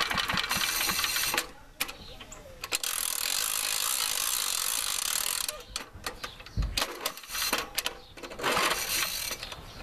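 The recoil starter of an old Curtis push mower's small engine is pulled again and again, giving three bursts of rattling, ratcheting cranking noise. The engine does not settle into a run, which the owner suspects is water in the fuel after it sat outside all winter. A low thump comes between the second and third pulls.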